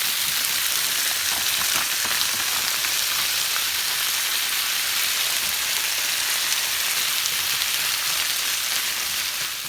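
Beef frying in hot vegetable oil in a pan: a steady sizzle with a few faint clicks.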